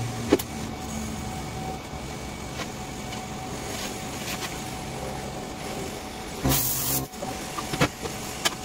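An engine running steadily, with a few light metal clinks and one short burst of hiss about two-thirds of the way through.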